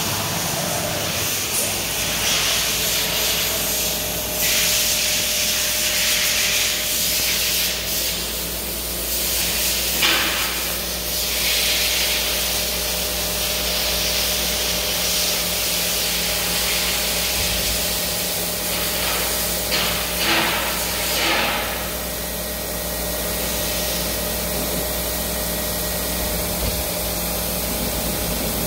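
Mazak VTC-20C vertical CNC machining centre running: a steady machine hum with long stretches of hissing and a few brief louder bursts. The hissing dies away about two-thirds of the way in, leaving the hum.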